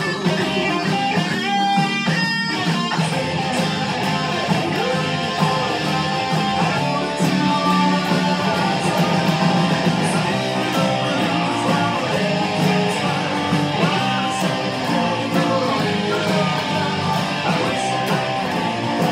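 Electric guitar played in a heavy-metal style: a busy, continuous run of notes over a steady low backing.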